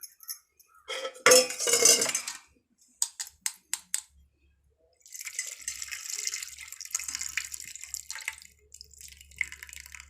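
Water sloshing and pouring in a pot as arhar (toor) dal is rinsed: a loud splash about a second in, a few sharp clinks, then water pouring steadily for several seconds.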